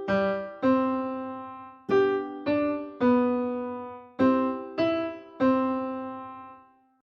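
A short melody on a piano-like keyboard: about eight notes struck at an unhurried pace, each ringing and dying away, the last held until it fades out. It is a test melody to be judged as major or minor.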